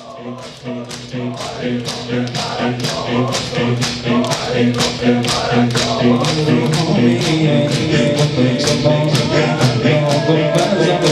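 Rhythmic chest-beating by a crowd of mourners (sineh-zani), a sharp slap a little over twice a second, under a male reciter chanting into a microphone with many voices singing along. It grows louder over the first few seconds.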